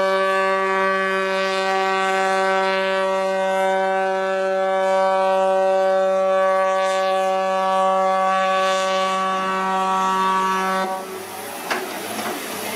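Ship's horn sounding one long, steady blast, a warning as a vessel closes on another ship; it cuts off about eleven seconds in, followed by general noise and a sharp knock.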